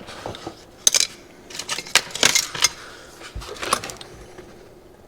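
Small metal parts and tools clinking and rattling as they are handled, in several short bursts of clatter that stop about four seconds in.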